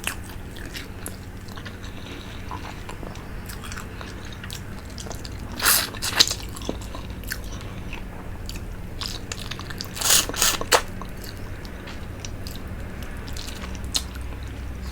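Close-up mouth sounds of eating soup: chewing with small wet clicks, and two louder slurps about six and ten seconds in.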